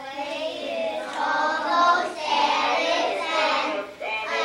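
A group of young children singing together, with a short break near the end before the singing picks up again.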